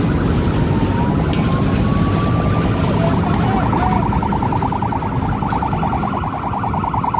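Emergency-vehicle siren in a slow wail, switching to a fast pulsing yelp about three seconds in, over a loud steady rumble.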